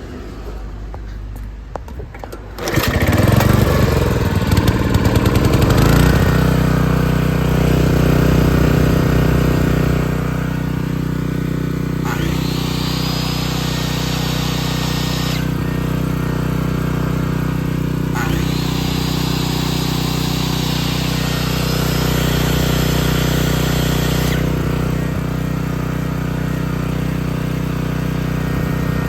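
Ryobi/Denyo GDX-2703 portable generator's engine starts about three seconds in, runs unevenly for a few seconds, then settles to a steady run. Twice a high rushing sound spins up and runs for several seconds over the engine's note before cutting off.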